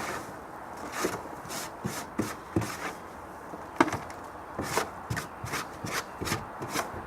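Irregular wooden knocks, clicks and scrapes as parts of a wooden chicken coop are handled and scraped during cleaning out.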